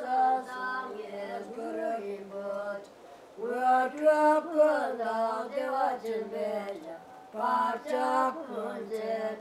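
Singing: a melody sung in phrases of held notes that step up and down in pitch, with short breaks about three seconds in and again about seven seconds in.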